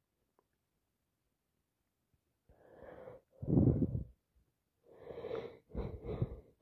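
A person with a head cold breathing in loudly through a congested nose and airway, starting about halfway through, then a run of short quick breaths and sniffs.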